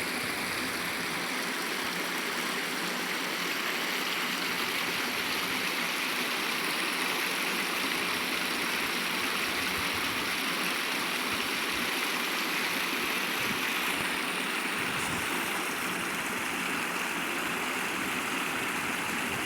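Water of a small stream running steadily over its bed, an even rushing hiss.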